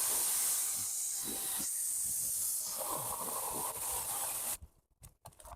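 Battery-powered chainsaw running and cutting through wood, a steady hiss of the chain that stops about four and a half seconds in.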